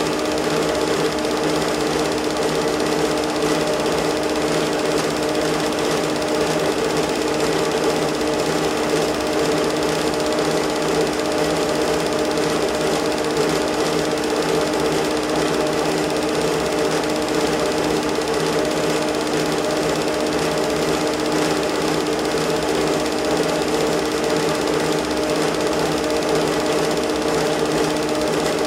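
Home-movie film projector running: a steady mechanical whir and clatter with a constant hum that does not change.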